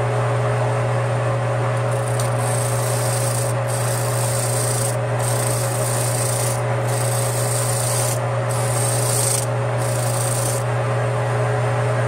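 Metal lathe running steadily while a hand wire brush scrubs the freshly cut threads of a spinning hydraulic fitting to clean them up. Six scrubbing strokes of about a second each, starting a couple of seconds in and stopping near the end, over the lathe's steady hum.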